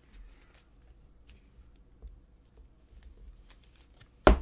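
Faint rustling and small clicks of a trading card and a thin plastic card sleeve being handled as the card is slid into the sleeve. Near the end, two sharp knocks, much louder, as cards are handled against the table.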